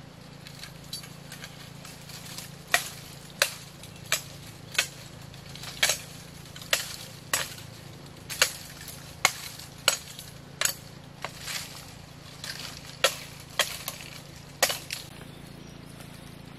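Machete blade striking a bamboo pole in a string of sharp, hard chops, about one every half second to a second and uneven in spacing, as the pole is trimmed; the chopping stops about a second before the end.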